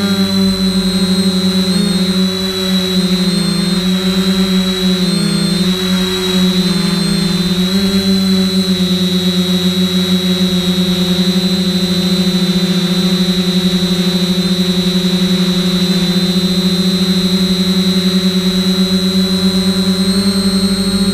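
Electric motors and propellers of a multirotor drone humming on the onboard camera's audio. The pitch wavers up and down for the first several seconds as the throttle shifts, then holds steady.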